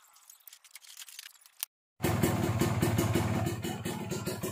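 Kawasaki Ninja RR's two-stroke single-cylinder engine idling steadily through its stock muffler with the baffle gutted out ('dibedel'). The engine sound cuts in abruptly about two seconds in, after a faint, near-empty stretch and a brief dropout.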